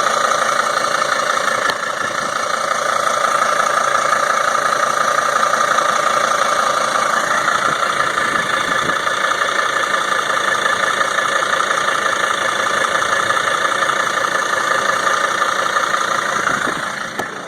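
2003 Sprinter van engine idling with a steady knocking and ticking, which the owner finds louder than normal and cannot yet explain.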